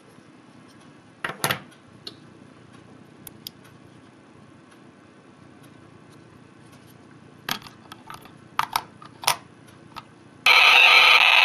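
Scattered clicks and taps of small circuit boards being handled and plugged onto a ChipTrickPocket DIY chiptune synthesizer. About ten seconds in, the synthesizer starts sounding again with a loud, noisy electronic tone that cuts in suddenly and is the loudest thing heard.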